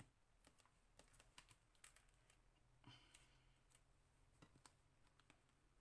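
Near silence with faint, irregular small clicks and taps of a paper card and craft materials being handled on a cutting mat.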